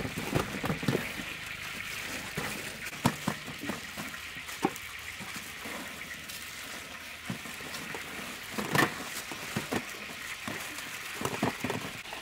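Dry breadcrumbs rustling and crunching as raw chicken drumsticks are pressed and rolled in them by hand in stainless-steel trays. A few sharper clicks and knocks stand out, the loudest near nine seconds in.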